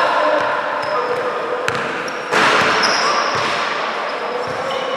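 Basketball game sounds in a gym: sneakers squeaking on the court and the ball bouncing, over a steady background of crowd and player voices, with a sudden louder burst of crowd noise a little over two seconds in.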